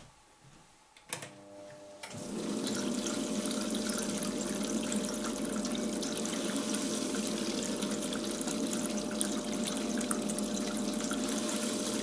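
A salvaged dishwasher circulating pump with an induction motor clicks on about a second in and its motor hums up to speed. Then the stream it pumps from the hose splashes steadily into a steel bowl of water, over a faint steady motor tone.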